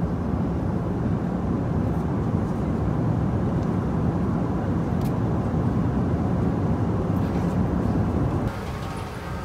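Jet airliner cabin noise in flight: a steady low rumble of engines and rushing air, which drops away about a second before the end.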